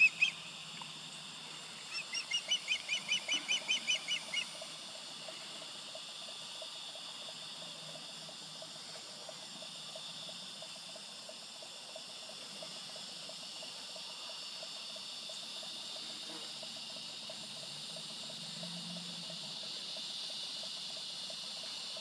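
Osprey fledgling calling: a quick run of about ten high, whistled cheeps over two and a half seconds, starting about two seconds in. Afterwards only a faint outdoor background with a soft, fast-pulsing chorus.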